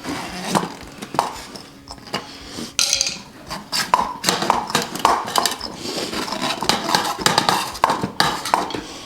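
Steel tire irons clinking and scraping against a spoked dirt-bike rim as a tight tire bead is pried off by hand. The clatter comes in irregular knocks and scrapes that grow busier about three seconds in.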